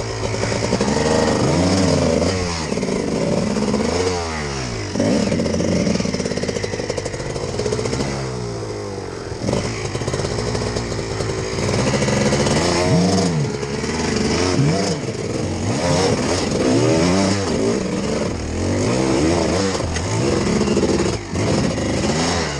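Trials motorcycle's single-cylinder engine revving up and down in repeated throttle blips as it climbs over loose rock, the pitch rising and falling every second or so with short dips where the throttle is shut.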